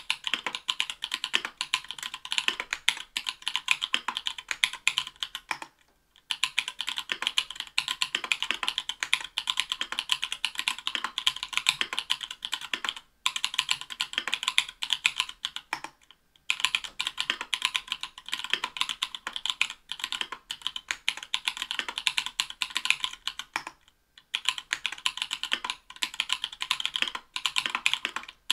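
Steady fast typing on a mechanical keyboard with stock, unlubed Everglide Bamboo Leaf Green 62g tactile switches in an aluminum plate, under Cherry-profile PBT keycaps. A continuous stream of keystrokes with short pauses about 6, 13, 16 and 24 seconds in.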